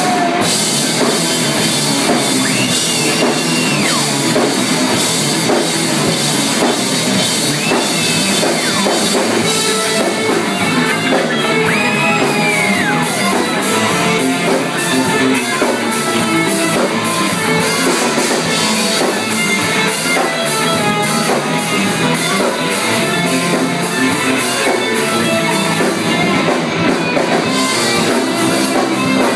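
Live rock band playing: electric guitars and a drum kit, loud and steady, with a lead singer.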